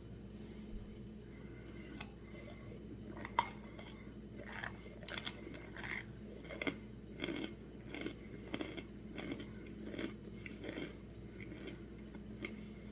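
A person biting and chewing hard, crunchy food close to the microphone: a run of crisp crunches starts about three seconds in, roughly two a second, and tails off near the end.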